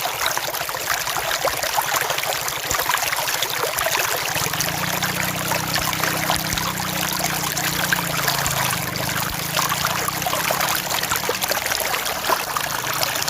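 River water flowing steadily, a continuous rush of many small splashes and trickles.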